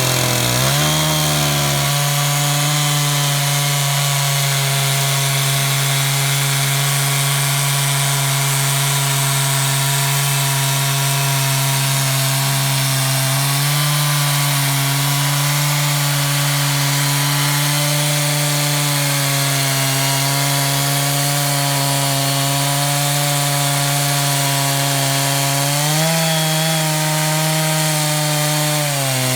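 Chainsaw in an Alaskan-style chainsaw mill running steadily at high speed under load, ripping lengthwise through a log. The engine revs up in the first second, rises in pitch briefly about 26 seconds in, and drops back near the end.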